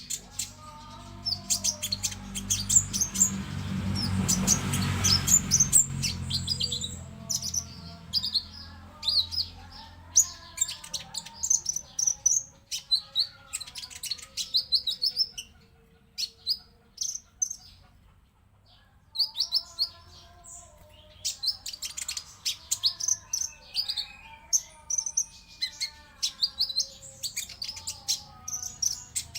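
Sunbirds (konin) singing in bursts of rapid, high-pitched chirps and twittering trills, with a short lull about halfway through. A rushing noise swells and fades within the first few seconds.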